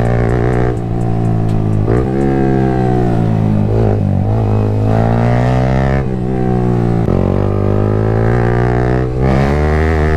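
Yamaha MT-15's 155 cc single-cylinder engine through an aftermarket Akrapovic exhaust, accelerating hard: the exhaust note climbs in pitch, then drops at each gear change, several times over.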